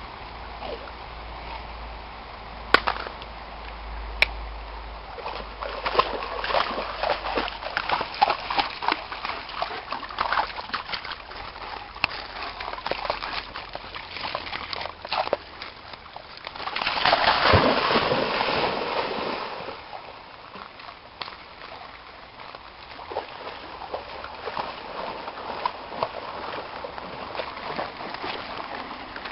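Shallow creek water splashing and sloshing as a German Shepherd dog wades and moves through it, with many quick splashes and a louder rush of splashing lasting a couple of seconds about two-thirds of the way in.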